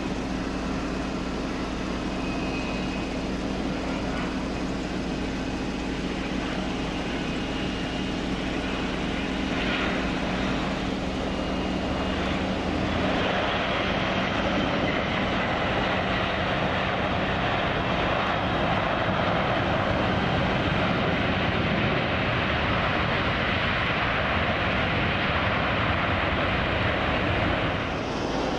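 Boeing 737-800 jet on short final, its CFM56 turbofans giving a steady hum and whine. About halfway through it touches down and a louder, broader rushing noise follows as it rolls out on the runway.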